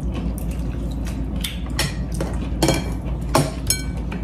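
Metal spoons clinking and scraping against ceramic bowls and plates during a meal, several sharp clinks, a couple of them ringing briefly.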